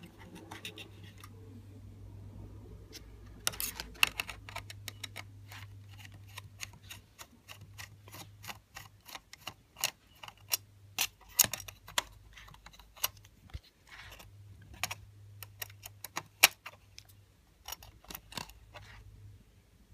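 Small Phillips screwdriver working the two screws out of an iBook G3's RAM shield: a long run of irregular light clicks and ticks of metal on metal, over a faint steady low hum.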